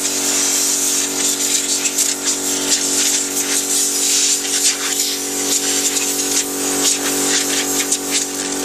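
Compressed air hissing from a blow gun, swelling and easing as it is aimed into a desktop computer's case fans and power supply. Under it, the air compressor runs with a steady hum.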